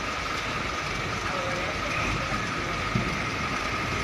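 Heavy diesel truck engine running at low revs as the wing-box truck creeps forward across the yard, with a steady whine over the rumble and a single short knock about three seconds in.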